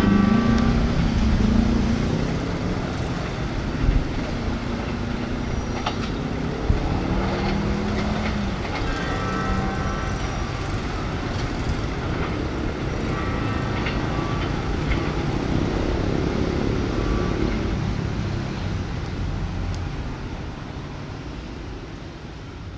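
Passenger train's coaches rumbling over the rails as they pull away, fading toward the end. Brief high squeals now and then and a couple of sharp clunks about 4 and 7 seconds in.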